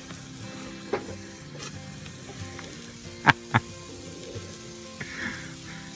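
Burger patties sizzling steadily in a cast-iron skillet on a portable camp stove. There is one sharp click about a second in and two more in quick succession a little past halfway.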